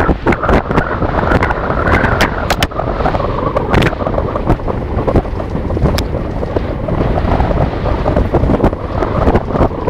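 Wind rushing over the microphone of a camera riding down a downhill mountain-bike trail, with many quick rattles and knocks as the bike clatters over rough dirt and roots.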